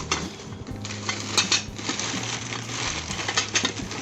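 Scattered light clicks and taps, like small metal parts being handled, over background music.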